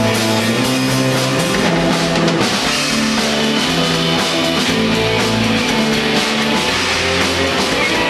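A live rock band playing loudly: electric guitar, bass and drum kit, with held bass notes that shift every second or so under a constant wash of cymbals.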